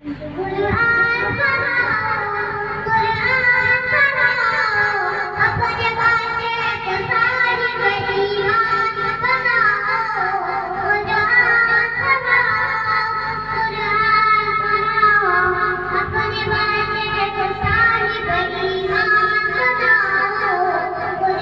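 A young boy singing an Islamic devotional song in a long, ornamented melody with held notes that bend up and down. His voice is amplified through a headset microphone and a portable speaker.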